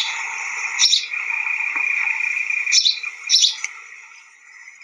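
Birds chirping: a steady chorus of birdsong with a few louder chirps standing out, which cuts off suddenly at the end.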